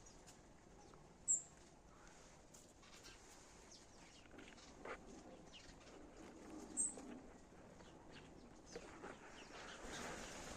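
Sparrows chirping, faintly, over a soft background hiss. Two short, sharp, high chirps stand out, about a second in and again about five seconds later, among fainter scattered calls.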